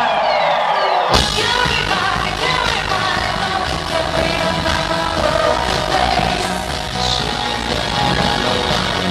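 Live pop music with singing played loud over a concert PA. The bass and beat are out for the first second, with falling sweeps, then the full band comes back in with a hit about a second in and carries on steadily.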